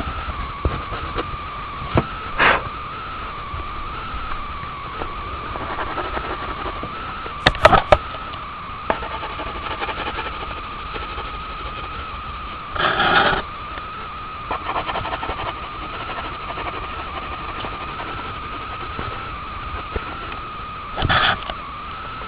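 A steady, slightly wavering high-pitched whine, with a few short scuffs of rubbing on drawing paper: the longest about a second long near the middle, another near the end, and a couple of sharp clicks about a third of the way in.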